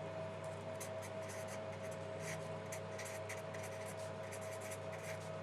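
Writing by hand: a run of short, irregular scratchy strokes as a pen or marker moves across a writing surface, over a steady low electrical hum.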